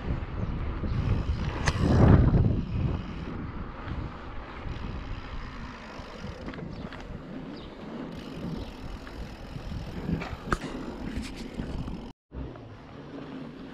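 Mountain bike rolling along a rough concrete road: steady tyre noise and wind on the microphone, with scattered clicks and rattles from the bike. A louder rush of noise swells about two seconds in, and the sound drops out briefly near the end.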